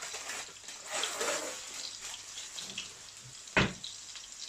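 Burgers sizzling in oil in a frying pan, a steady hiss, with one sharp knock about three and a half seconds in.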